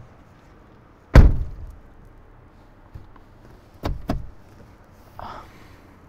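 A car door shuts with a solid thunk about a second in, the loudest sound. Nearly three seconds later come two quick thuds close together, then a softer brief rustle.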